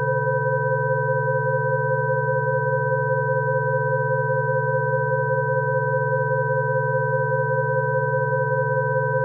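Electronically generated Rife-frequency sine tones: a low tone and several higher pure tones sounding together, steady and unchanging.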